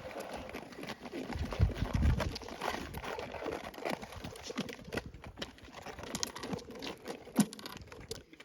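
Thin black ice on a frozen lake ringing and cracking under ice skates: a dense run of sharp pings and clicks, with a few heavier low thumps about a second and a half in.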